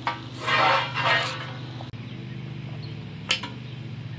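Steel shop-press frame channel being slid out of its cardboard box, giving two scraping rasps in the first second or so, then a single sharp knock about three seconds in.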